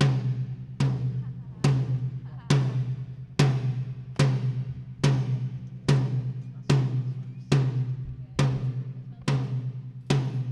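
Mid tom of a drum kit struck alone at an even pace, a little more than one hit a second, each hit ringing with a low pitched tone, as the drum is line-checked one piece at a time.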